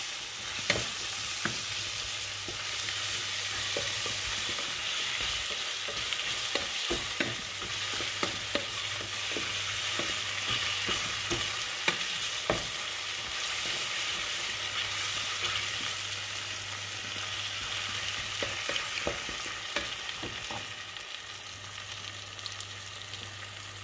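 Sliced potatoes and onions sizzling in oil in a stainless steel pot while a wooden spatula stirs them, knocking and scraping against the pot in frequent irregular taps.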